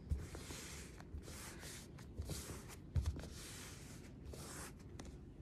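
Hands pressing and rubbing a glue-coated piece of anaglypta wallpaper onto a sketchbook page: quiet paper swishing and rustling in short strokes, with a soft bump near the start and another about three seconds in.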